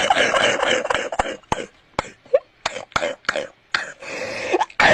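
A child coughing repeatedly. A rough hacking stretch gives way to a run of short, sharp coughs at about three a second, then a longer, louder rasping cough near the end.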